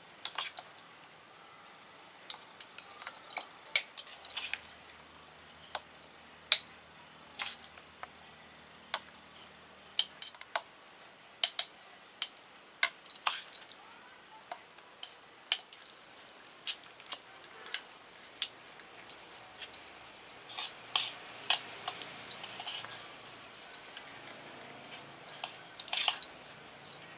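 A spoon clinking and scraping against a glass jar and glass dish as chilli pickle is spooned into the jar: irregular sharp clicks, a few much louder than the rest.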